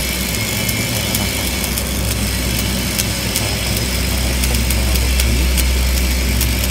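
Stick (shielded metal arc) welding an inside corner joint on steel: the arc crackles and sputters steadily with a dense run of small pops, over a steady low hum.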